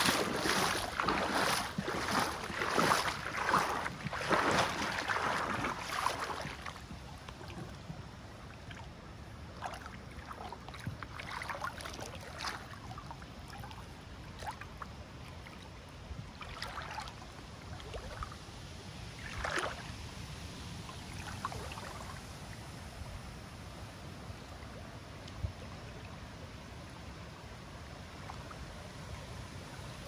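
Water splashing and lapping, with a busy run of irregular sloshes for the first six seconds, then quieter water broken by occasional single splashes.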